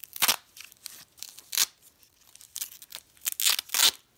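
Pink foam packing wrap being pulled open by hand: a series of short rustling, tearing scrapes, loudest near the start and near the end.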